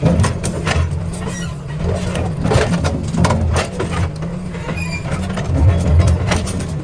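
DLC 225 excavator's diesel engine running steadily under load, with repeated sharp knocks and clatter of rock against the steel bucket as it packs blasted stone into the trench.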